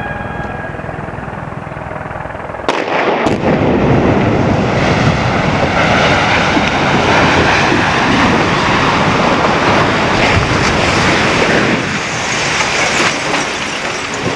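A warning siren dies away at the start; about three seconds in, the demolition charges go off in two sharp cracks, and a long, loud rumble follows as the blasted silo topples and crashes down, easing off near the end.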